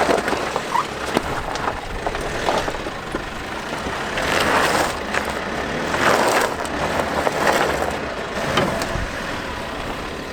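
A 4x4 driving over a rough, bumpy track: steady engine and tyre noise with scattered knocks and rattles, and three louder crunching bursts around the middle.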